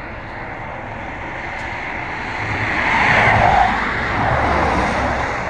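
Road traffic passing close by: tyre and engine noise swells to a peak about three seconds in, comes up again a little later, then fades.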